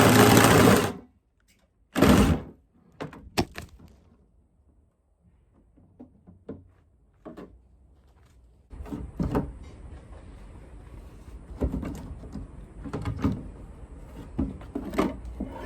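A cordless jigsaw cutting a hole in a water tank stops about a second in, followed by scattered thunks and knocks as the tank and saw are handled. A faint steady hum comes in at about nine seconds, with more knocks over it.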